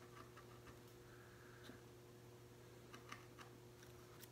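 Faint, scattered ticks and a brief light scrape of a carving gouge cutting into a plywood woodcut block, over a steady low hum.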